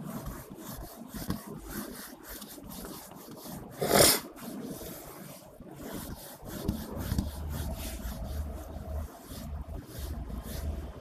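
Light rubbing and scraping strokes of a diagram being erased and drawn on a board, with one brief loud bump about four seconds in. A low hum starts about seven seconds in.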